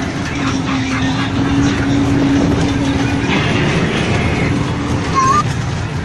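Children's amusement-ride train running on its small rail track: a steady low rumble with a steady humming tone over it, and a brief rising squeak about five seconds in.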